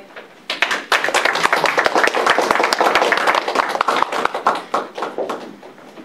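Audience applauding, starting about half a second in and dying away near the end.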